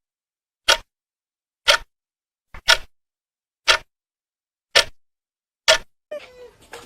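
Clock-like ticking: six sharp ticks about a second apart, with dead silence between them.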